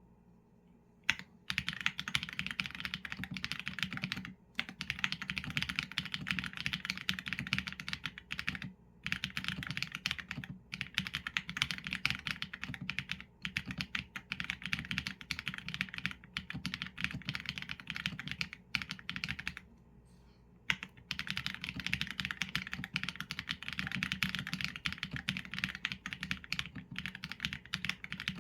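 Fast typing on a Qsenn A75 mechanical keyboard with Leobog Graywood v4 linear switches and PBT keycaps: dense runs of key clacks starting about a second in, broken by short pauses and one longer pause a little past the middle.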